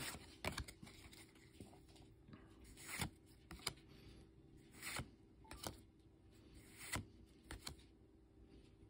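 Pokémon trading cards sliding against each other as they are moved one at a time to the back of the stack: faint soft swishes and clicks, about every two seconds.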